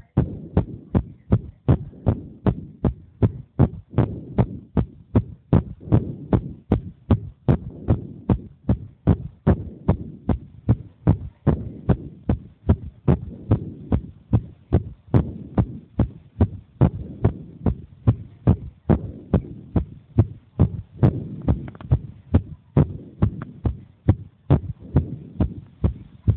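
A ten-year-old child's heartbeat, amplified: a steady, even run of heart-sound thuds, about two to three a second, over a low rumble.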